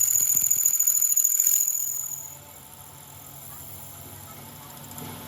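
Workshop machinery giving a high, steady whine that cuts out about two seconds in, leaving a low steady hum of machinery running.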